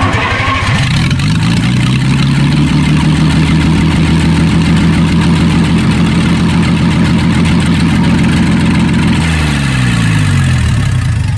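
Replacement engine in a Bucyrus Erie 10-B shovel, started by jumping the starter solenoid with a wire. It catches almost at once and runs steadily, then winds down near the end, its pitch falling as it stops.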